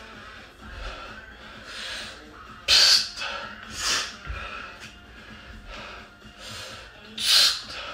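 A man breathing hard while doing lunges, with two sharp, loud exhalations about three and seven seconds in and fainter breaths between them.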